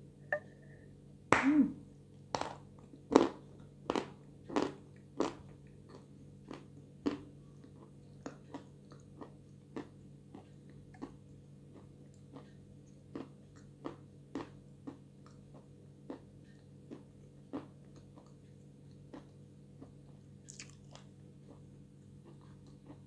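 A bite into a block of white edible chalk, one loud crunch just over a second in, followed by close-up chewing: sharp crunches about every two-thirds of a second that grow fainter as the chalk is ground down.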